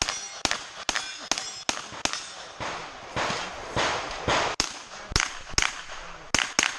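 A string of rapid gunshots at a shotgun/pistol-caliber-carbine match, about two a second, with a pause of a couple of seconds in the middle before more shots. Steel targets give a metallic ring after the first few shots.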